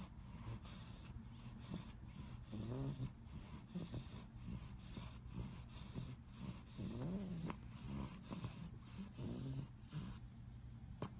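English Bulldog puppy snoring in its sleep: quick, repeated noisy breaths, with a few longer, wavering snores about three, seven and nine seconds in. The snoring comes from the breed's short, flat muzzle.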